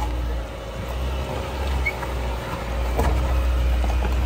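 GWM Tank 300 SUV's engine running low and steady as it crawls over rock, with a single knock about three seconds in.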